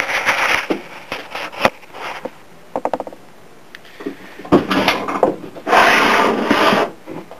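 Rustling and knocks of a camera being handled, a few light clicks, then a scraping rub near the end as a steel block is pushed across a wooden workbench.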